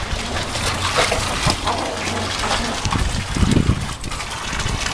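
Garden hose running water into a small wading pool: a steady splashing rush of water.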